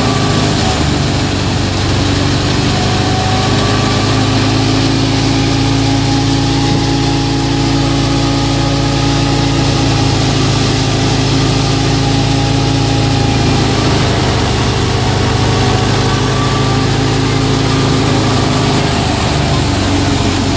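Wheat thresher driven by a FIAT 640 tractor running steadily under load as straw is fed in. The tractor's diesel engine and the thresher's spinning drum make a steady mechanical drone with a dense hiss over it.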